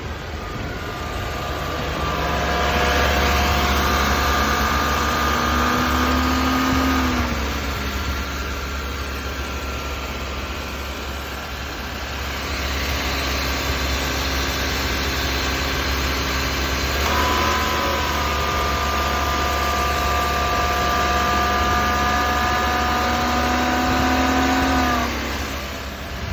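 Defective AC compressor of a 2020 Honda Civic, heard through a contact microphone clamped onto it with the compressor clutch engaged: a low hum under a whine of several steady tones. The whine rises in pitch and grows louder twice as the engine is revved, dropping back about seven seconds in and again near the end.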